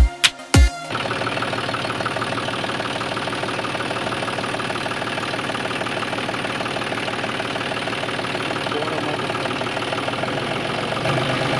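Small motor of a DIY model tractor running steadily with a fast, even rattle, shifting lower and louder near the end.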